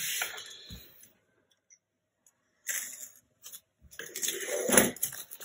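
Plastic shrink wrap on a hardcover book crackling and rustling as it is slit with a box cutter and handled, in short spells with a quiet gap of about a second and a half in the middle, loudest near the end.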